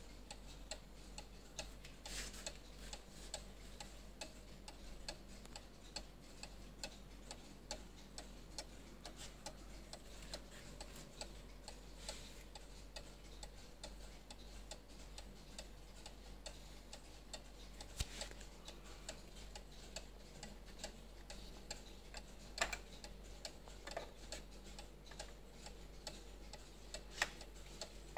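Mechanical Swiss cuckoo clock with a farm-scene cow in place of the cuckoo, its pendulum escapement ticking steadily and quietly. A few sharper, louder clicks stand out in the second half.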